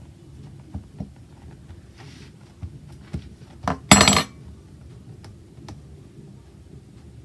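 Metal fork clicking against a plastic cutting mat while crimping pastry edges, then a loud metallic clatter with a short ring about four seconds in as the fork is set down.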